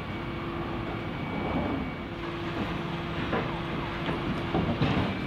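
Refuse collection lorry running, with a steady hum from its engine and hydraulics that drops away about halfway through. Several metallic clanks and knocks come over it, the loudest near the end.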